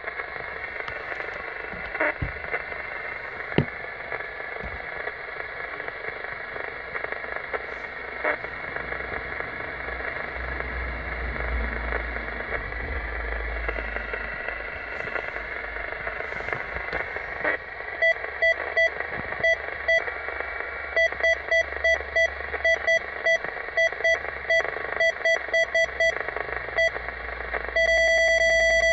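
Mobile radio receiver hissing on an empty channel, with a few faint clicks. About two-thirds of the way in, a quick, irregular run of short two-pitch beeps starts, with one held beep near the end, as the set is stepped through its channels.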